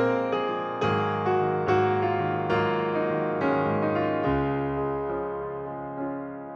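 Background piano music: gentle notes about two a second, each dying away, growing softer and more sustained after about four seconds.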